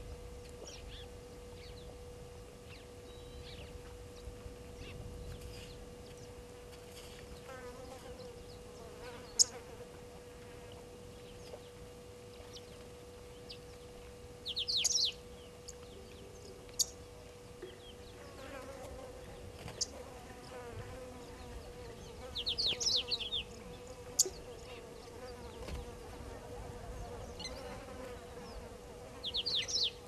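Insects buzzing with a steady hum, while birds give three short, fast chirping trills and a few sharp single ticks.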